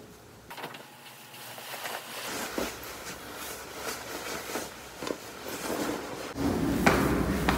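Faint rustling of clothing and light knocks as a padded puffer jacket is pulled on and adjusted. Near the end, a louder rumble with sharper knocks comes in.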